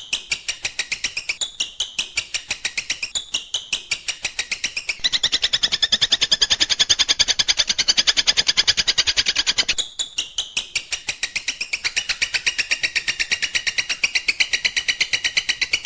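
Long-tailed shrike (cendet) singing a rapid, even series of sharp, high repeated notes. The notes come faster and louder from about five seconds in until about ten seconds in.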